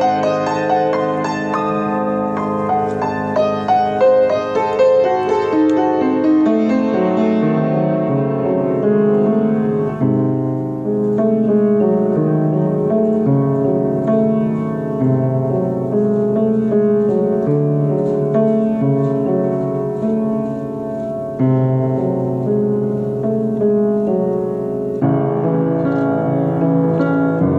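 Solo piano piece played on a Steinway & Sons baby grand, with many notes ringing together under the sustain. Busier, higher figures in the first several seconds give way to slower, lower held chords.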